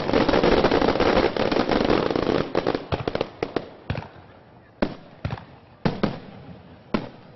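Fireworks going off: a dense stretch of crackling for the first couple of seconds, then separate sharp bangs, spaced out to about one a second near the end.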